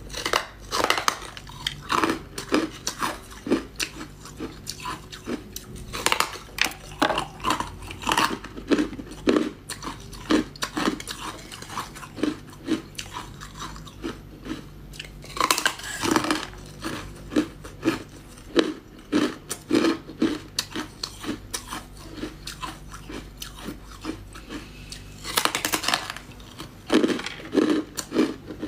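Ice being bitten and chewed close to the microphone: quick, irregular crunches several times a second, with louder, longer crunches near the middle and near the end.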